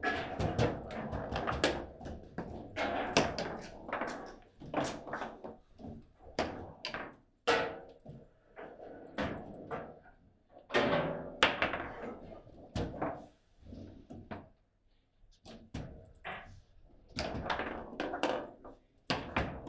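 Irregular hard knocks and thuds on a table football table, the ball and rods striking the table, sometimes several in quick succession, each with a short ring.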